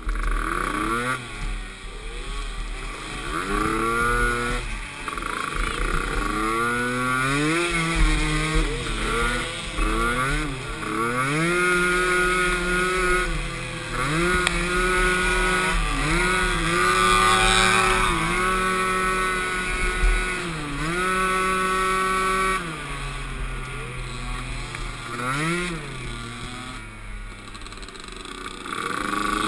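Small pee wee ATV engines racing, the throttle repeatedly opened, held and backed off, so the engine note climbs, holds steady for a second or two, then drops, over and over. Around a quarter of the way in, a second engine's rising note overlaps the first.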